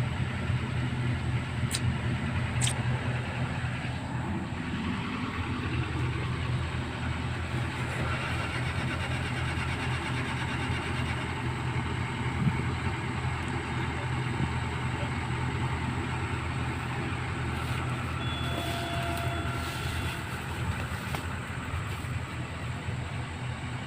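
Heavy diesel engine of earthmoving equipment running steadily with a low drone.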